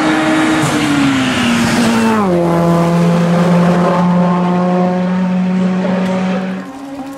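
Racing car engine running hard at high revs; its pitch steps down twice, about a second and two seconds in, then holds steady before falling away near the end.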